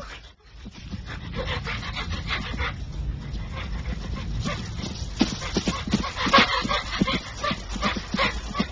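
Brown bear panting and huffing in quick, short breaths, growing faster and louder about five seconds in, over a steady low wind rumble.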